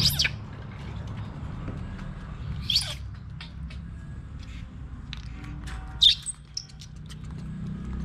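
Baby macaque giving short, shrill squeals, three times, each falling in pitch, with a few light clicks between them.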